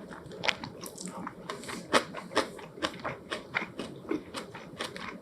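Close-miked eating sounds: a person chewing a mouthful of food, with a run of sharp, irregular mouth clicks about two to three a second.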